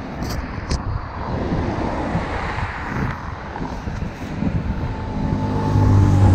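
Wind buffeting the microphone with a low rumble, and a steady engine hum that grows louder over the last two seconds.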